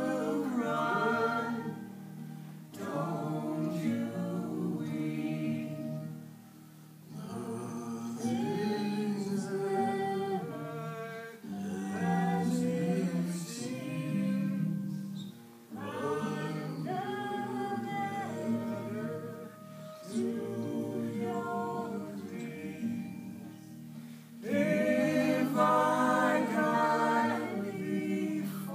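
Choir-like singing: several voices holding slow, sustained phrases of about four seconds each, with short breaks between.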